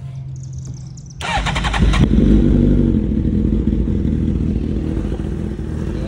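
Suzuki GSX-R1000 inline-four turned over on the electric starter, catching about a second and a half in and settling into a steady idle.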